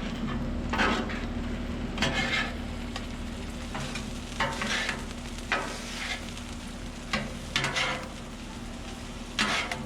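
Marinated chicken pieces sizzling steadily on a Blackstone flat-top griddle, broken by about eight short, irregular scraping or stirring sounds as the meat is moved about. A steady low hum runs underneath.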